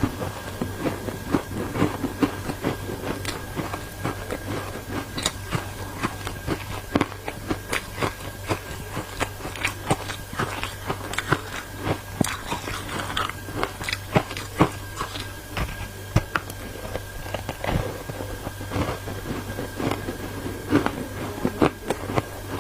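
A person biting and chewing ice coated in matcha powder: an irregular run of sharp cracks and crunches, several a second.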